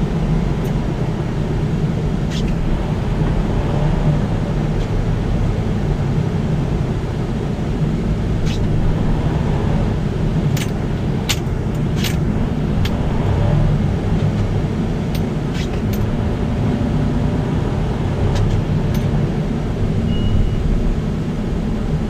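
Freightliner Cascadia semi truck on the move: a steady low rumble of engine and road noise, with scattered sharp clicks and ticks, several of them bunched together about halfway through.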